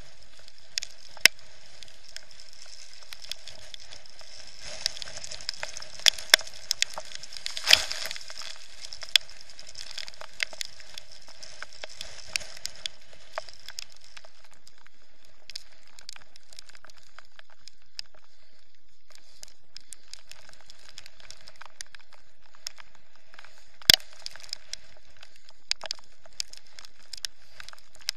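Irregular sharp clicks and crackles of spray and water drops hitting a GoPro's sealed waterproof housing, over a faint steady hum. The loudest cracks come about eight seconds in and near twenty-four seconds.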